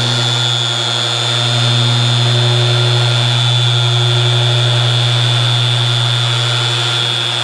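Small electric polisher running steadily, buffing automotive clear coat with a finishing pad and finishing polish: a strong low hum with a thin high whine over it.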